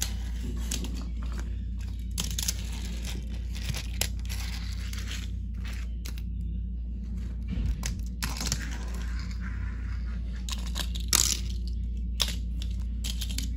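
Close rustling, scraping and clicking handling noises as a hand moves a small toy train car and paper crossing cutouts by a wooden toy track, over a steady low hum. A sharper click stands out about eleven seconds in.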